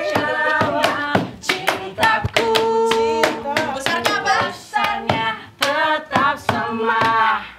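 Voices singing a pop song together, with a long held note about three seconds in, and hand claps throughout.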